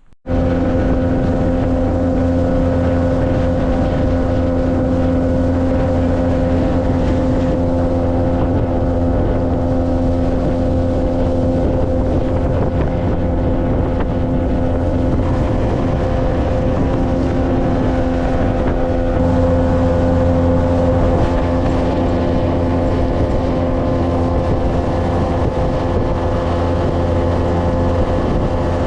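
Boat motor running at a steady speed, with wind noise on the microphone.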